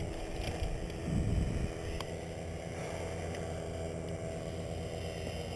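Paramotor engine idling steadily on the pilot's back after landing, with a brief louder noise about a second in.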